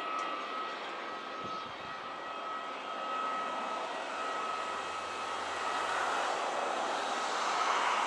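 Bombardier Dash 8 twin turboprop on short final: a steady high whine from the engines and propellers over a rushing drone that grows louder in the last few seconds as the aircraft comes closer.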